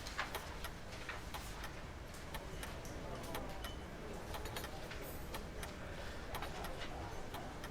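Outdoor café terrace ambience: scattered light clicks and clinks, irregular, over a faint murmur of voices.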